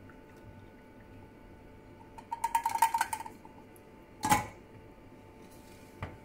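A metal mesh tea infuser clinking and rattling in quick light taps against an enamel pot for about a second, then one louder ringing clunk as it is set into the pot. A small knock near the end as a ceramic mug is set down on the glass cooktop.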